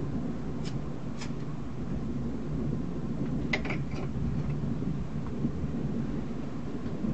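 A steady low rumble of storm ambience. A few brief high chirps come about a second in and again near the middle.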